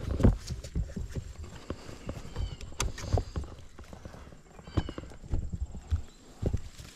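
Handling noise of a camera pushed through dense brush: leaves and stems rustling and brushing against it, with irregular thumps and clicks.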